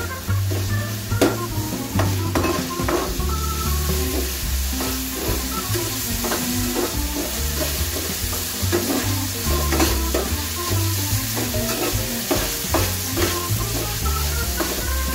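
Carrot and bell pepper strips sizzling in a hot frying pan while a metal spatula stirs them, with a steady frying hiss and frequent scrapes and taps of the spatula against the pan.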